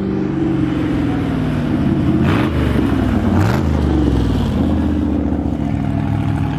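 Vehicle engines running, with one revving so its pitch rises and falls between about two and four seconds in.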